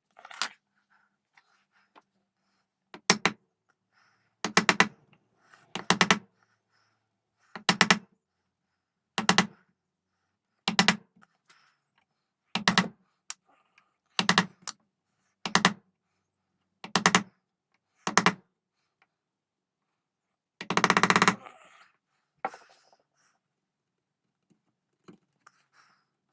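Hand woodworking tool cutting into a walnut-type gunstock while inletting a trigger recess: about a dozen short bursts of rapid sharp strikes, one every second and a half or so, with a longer burst about three-quarters of the way through.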